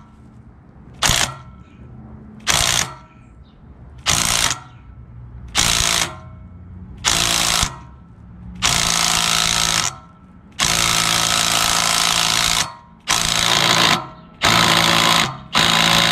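Cordless impact wrench hammering a fine-thread bolt into a Honda GX340 crankshaft to hold a centrifugal clutch, in short bursts about every second and a half, then from about halfway in longer bursts of one to two seconds as the bolt is driven home.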